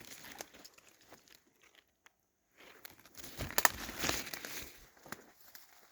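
Footsteps crunching and crackling through dry leaves and twigs on a forest floor, stopping briefly about two seconds in, then picking up again with louder crackling steps.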